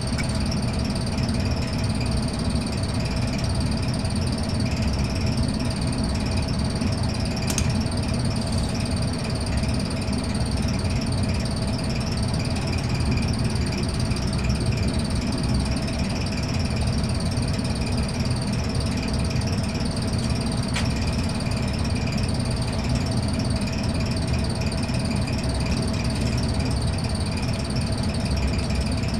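Gas furnace running steadily: a low motor hum and rumble, with a thin high-pitched whine held over it.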